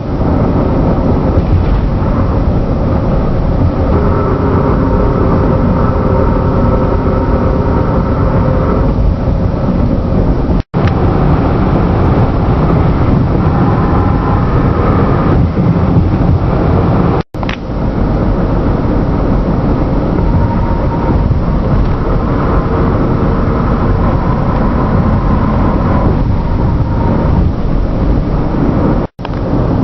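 A loud, steady rumbling drone with faint, wavering held tones over it, cut off three times by sudden, very short dropouts.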